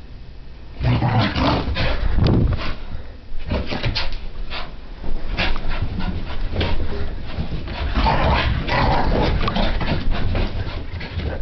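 Brittany spaniel puppy making excited dog noises during a frantic play spell, a 'frap', mixed with repeated knocks, scuffles and rustling.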